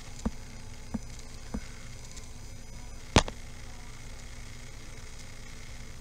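Four short, sharp computer-mouse clicks, picked up by a desk microphone while scrolling a web page. The one about three seconds in is much the loudest. Behind them is a steady hiss and hum.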